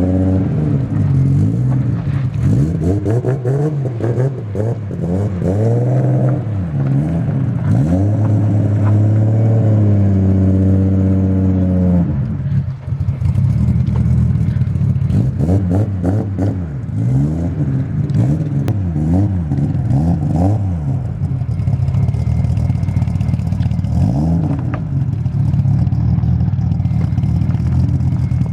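Freshly rebuilt Toyota 1JZ straight-six in a JZX100 Chaser on its run-in tune, accelerating and easing off again and again as the car is driven, its revs rising and falling repeatedly. Near the middle it holds steady revs for a few seconds, then drops sharply.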